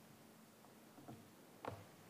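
Near silence: room tone with a faint steady hum, and a soft knock near the end.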